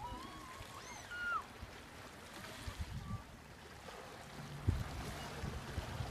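Wind buffeting the microphone in irregular low thumps over lapping water, the loudest thump a little before five seconds in. A few short rising-and-falling bird calls sound in the first second and a half, and a faint steady low hum comes in about four seconds in.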